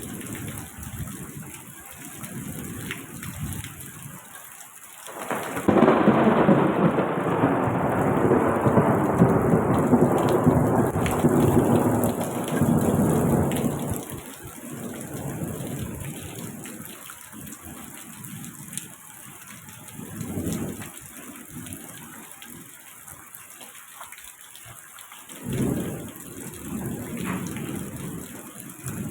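Rain falling steadily during a thunderstorm. About five seconds in a loud, long roll of thunder begins and fades out over roughly eight seconds. Weaker rumbles of thunder follow later, the last a little before the end.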